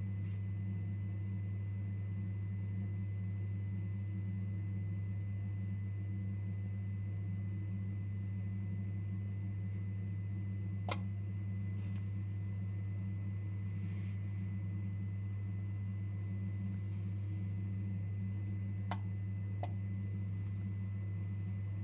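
Faulty Nest Heat Link giving off a steady low electrical hum with a thin high whine over it. A sharp click comes about halfway through, and two lighter clicks come near the end.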